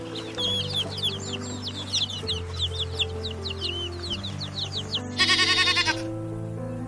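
Rapid, busy bird chirping over background music, then about five seconds in a loud, quavering goat bleat lasting under a second.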